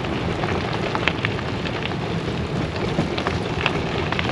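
Cooking pot rattling in a bicycle-towed caravan on the move: a steady, dense clatter of many small knocks.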